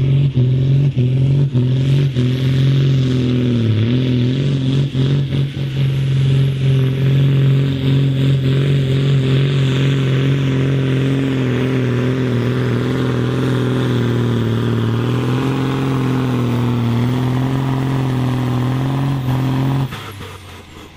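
Big John Deere tractor diesel engine running flat out under heavy pulling load, a loud steady drone that holds its pitch with small dips, with a few clattering knocks in the first six seconds. About 20 seconds in it cuts abruptly to a much quieter engine sound.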